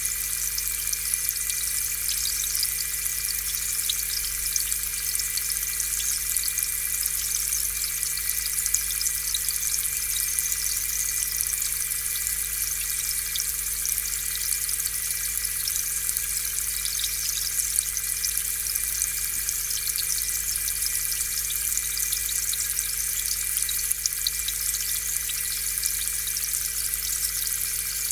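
Aquarium air pump running steadily, its air bubbling up through the tank water in a constant fizzing patter over a faint electric hum.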